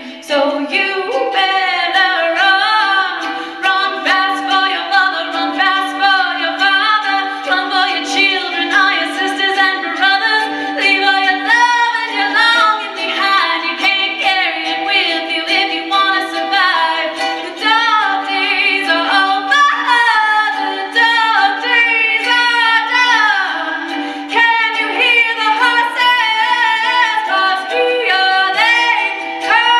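A woman singing a song in a clear, full voice, with a ukulele strummed quietly beneath it.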